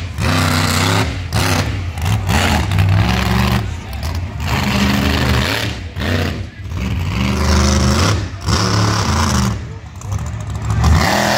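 Monster truck engine revving hard in repeated surges, climbing and dropping about every second or two as the truck performs its freestyle run.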